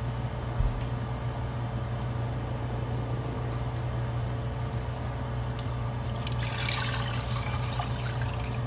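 A steady low hum, then about six seconds in water is poured from a glass bowl into a stainless-steel pot of sautéed beef and tripe, splashing for about two seconds.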